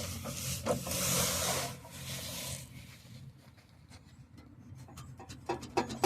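Loose metal part under the car near the gas tank being moved: a scraping rattle for the first couple of seconds, then a few light sharp taps near the end. Its knocking against the exhaust pipe is the cause of the car's rattle.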